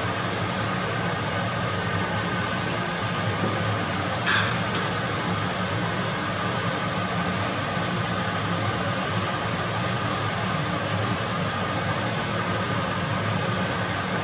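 Scallops sizzling steadily in hot oil in a nonstick frying pan. About four seconds in, metal tongs knock sharply against the pan, with two lighter clicks just before.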